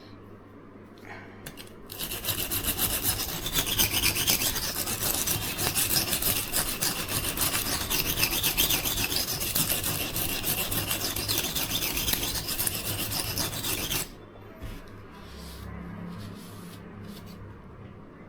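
A petty knife's steel blade being stroked rapidly back and forth on the oiled coarse silicon carbide side of a Norton 37C combination whetstone: a steady gritty scraping that starts about two seconds in and stops abruptly a few seconds before the end, followed by a few light clicks.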